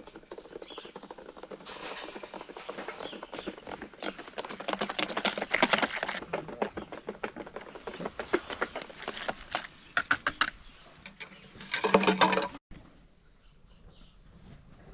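Rustling and clicking in straw bedding while a newborn calf is held and tube-fed, with a short pitched call about twelve seconds in.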